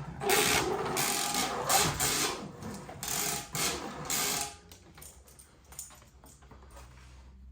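A run of about ten short, rasping mechanical strokes in quick succession, like a ratchet or tool working. The strokes stop about four and a half seconds in, leaving only light clicks and handling noise.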